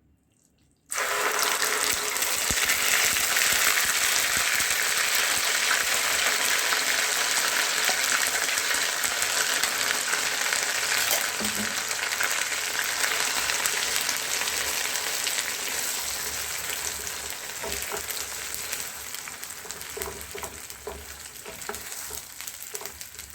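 A wet paste of freshly ground turmeric and ginger hitting hot ghee in a pan: a loud sizzle breaks out about a second in and slowly dies down as the water in the paste cooks off, with a few clicks near the end.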